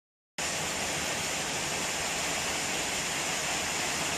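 Steady hiss of heavy rain falling, starting after a brief silence.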